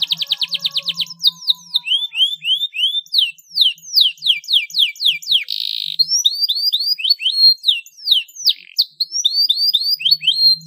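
Domestic canary singing: a fast rolling trill, then runs of quick downward-sweeping whistled notes, several a second, with a brief buzzy note about halfway through.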